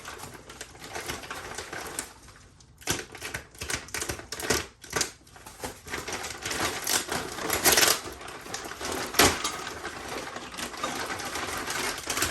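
Handling noise from unpacking an exhaust kit: rustling packaging with irregular clicks and knocks as parts are moved about.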